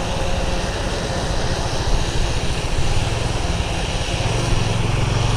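Motorcycle engine running steadily on the move, under heavy wind rush on the microphone. The engine's hum grows stronger about three seconds in.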